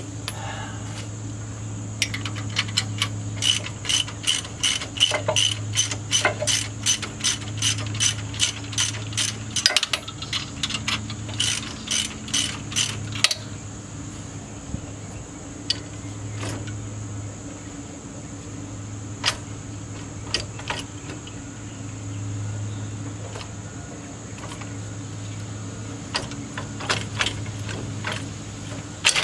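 Hand socket ratchet clicking through a run of quick strokes for about ten seconds, then a few scattered clicks, with a steady low hum underneath.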